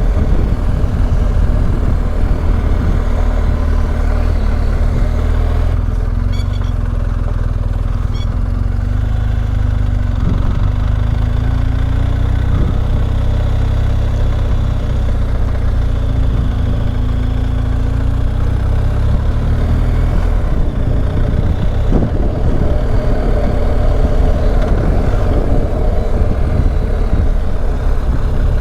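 BMW R 1250 GS Adventure's boxer-twin engine running steadily as the bike rides along, a continuous low rumble.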